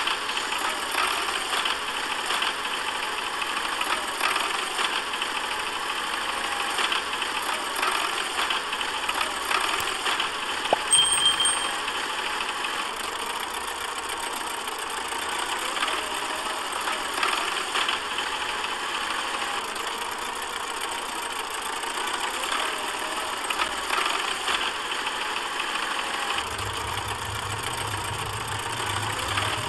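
A motor running steadily with an engine-like drone as a DIY mini tractor works, pulling a chained block through soil. There is a brief louder moment about eleven seconds in, and a deeper hum joins near the end.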